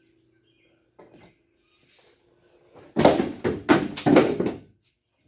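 A quick run of loud knocks and rattles from the 1986 Ford F150's door handle parts being worked loose and handled, starting about three seconds in and lasting about a second and a half. Before it there is a faint steady hum and one small click.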